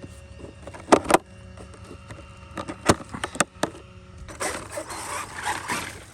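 Electric RC monster truck: a few sharp knocks in the first half, then its motor and spinning tyres whirring from about four seconds in.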